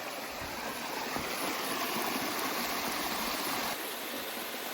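Shallow rainforest creek running over rocks: a steady rush of flowing water, a little quieter from near the end.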